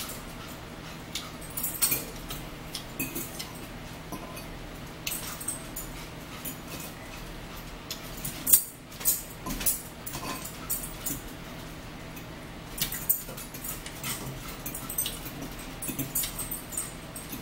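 Eating a salad with forks: irregular clicks and crunches from forks scraping and tapping the bowls and from chewing, over a faint steady low hum.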